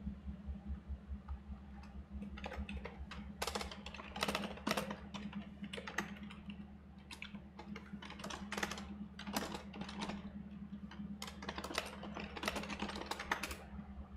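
Fast typing on a computer keyboard: bursts of quick keystrokes starting about two seconds in, over a steady low hum.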